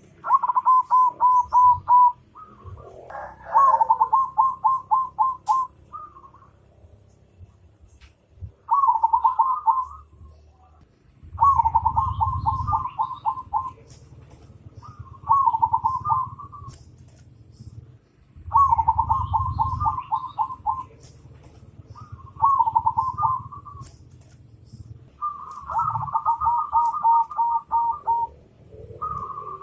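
A bird calling over and over, in short phrases of quick repeated notes. A new phrase comes every two to three seconds, over a faint low rumble.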